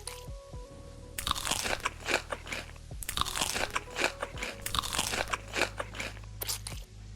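Loud crunchy biting and chewing of crisp food close to the microphone, in bouts of rapid crunches that stop briefly about three seconds in and again near the end. Background music with a simple melody of held notes plays underneath.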